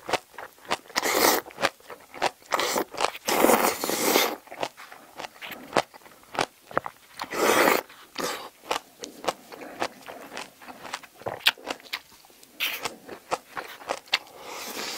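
Close-miked eating of spicy braised seafood with bean sprouts: crunchy chewing with many quick clicks, broken by several long slurps as mouthfuls are drawn in from chopsticks.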